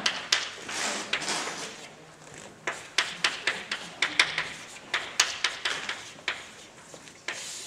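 Chalk writing on a blackboard: an irregular run of sharp taps and scratchy strokes as letters are chalked one after another.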